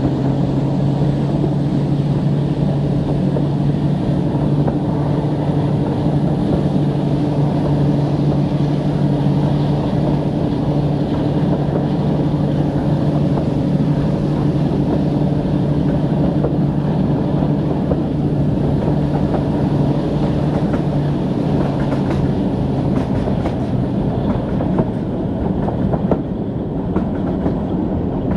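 Maybach diesel engines of a Class 42 'Warship' diesel-hydraulic locomotive running steadily under power, heard from a carriage window of the train it hauls, along with wheel and rail noise. About three-quarters of the way through, the engine note eases off and the clickety-clack of wheels over rail joints comes to the fore.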